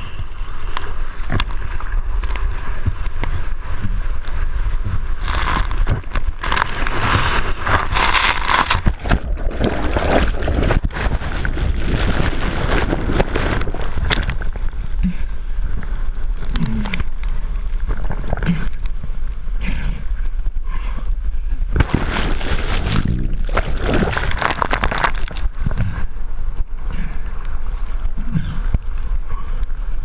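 Ocean sounds on a windy outdoor microphone: a steady low rumble with wind buffeting the mic, and rushing, splashing water that swells in two longer surges, about a quarter of the way in and again past the two-thirds mark.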